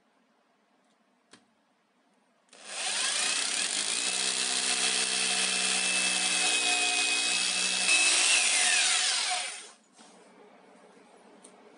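Electric hammer drill boring a screw hole into a wall, running steadily for about seven seconds from a few seconds in, then released, its motor whine falling in pitch as it spins down.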